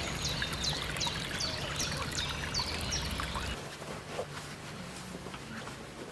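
Water trickling and pouring, with many short high chirps over it for the first three seconds or so. The low rumble underneath drops away suddenly about three and a half seconds in, leaving a quieter trickle.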